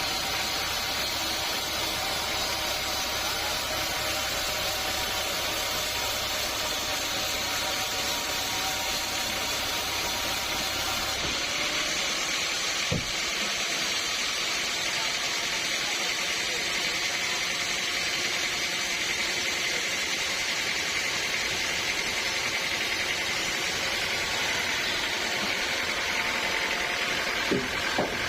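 Sawmill machinery running steadily: a dense, even machine noise with steady whining tones. The sound changes about eleven seconds in, and a few short knocks come near the middle and near the end.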